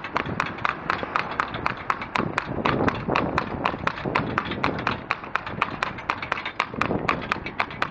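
A filly's hooves clip-clopping on a tarmac road as she pulls a cart: a quick, even run of sharp clicks, about five a second, over a steady rumble of the cart's wheels.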